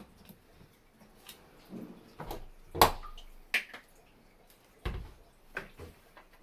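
Bosch dishwasher being shut after dosing the detergent: a handful of sharp plastic clicks and knocks as the detergent dispenser lid snaps closed, the loudest about three seconds in, then a deeper thud about five seconds in as the door closes.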